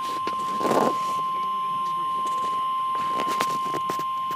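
Weather-radio warning alarm: one steady, single-pitch tone held without a break, the NOAA Weather Radio 1050 Hz alert tone that signals a National Weather Service warning message is about to follow. A few short bursts of static sound over it, about a second in and again near three and a half seconds.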